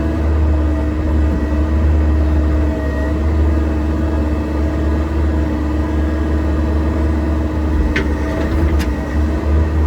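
Excavator's diesel engine running steadily under work, with two sharp metallic clanks near the end.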